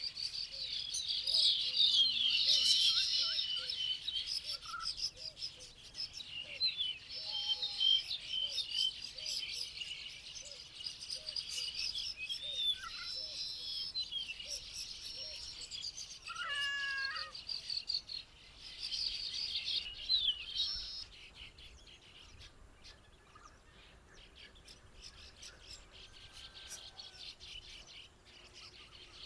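A chorus of several birds singing and chirping, with busy overlapping trills and a low note repeated about twice a second in the first nine seconds. The chorus thins out about two-thirds of the way in, leaving quieter rapid ticking and scattered calls.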